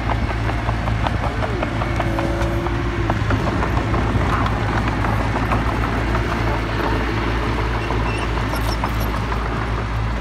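Mitsubishi BD2G crawler dozer's diesel engine running steadily, with a rapid clatter from its steel tracks and undercarriage as it moves.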